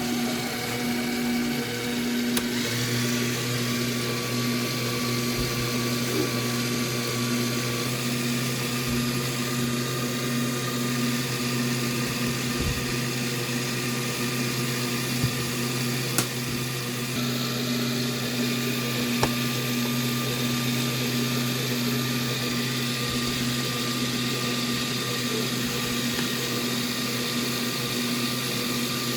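Small electric motor running with a steady hum, most likely the KitchenAid multi-cooker's stirring motor turning fried rice; the hum grows stronger about two seconds in, with a few light clicks.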